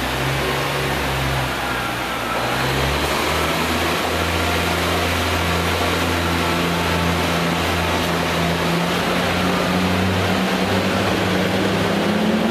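Class 143 Pacer diesel multiple unit's underfloor diesel engines running steadily. Their pitch rises near the end as the engines rev up.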